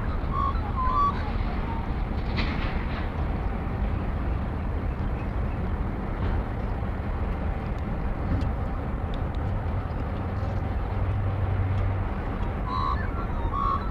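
An S class diesel-electric locomotive, with an EMD 567 two-stroke V16, runs as it slowly hauls a train of grain hopper wagons, making a steady low rumble.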